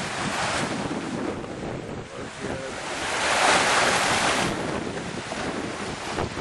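Water rushing through the start troughs of water slides, mixed with wind buffeting the microphone; the rush swells louder about three seconds in and eases off a second and a half later.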